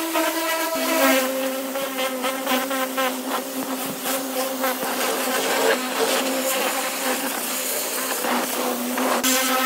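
Pressure washer running, its pump giving a steady buzzing whine over the hiss of the water jet striking chemically stripped car-body sheet metal. The whine drops in pitch about a second in and rises again near the end.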